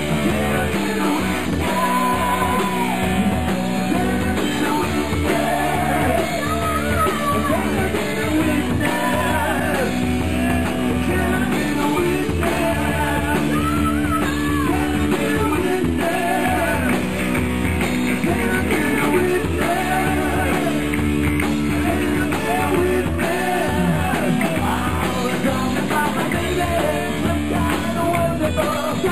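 Live rock band playing, with a lead melody line bending up and down in pitch over held chords.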